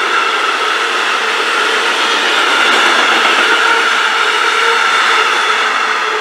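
Freight train of empty stake wagons rolling past, a loud steady rush of wheels on rail with a steady high whine from the wheels.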